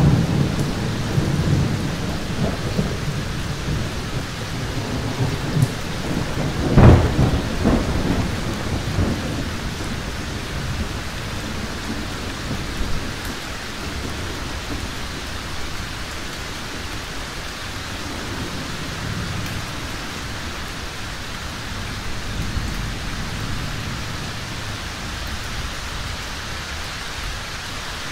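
Heavy thunderstorm: steady rain with rolling thunder. A sharp thunderclap about seven seconds in is the loudest moment and rumbles away over the next few seconds, leaving steady rain with softer rumbles of thunder.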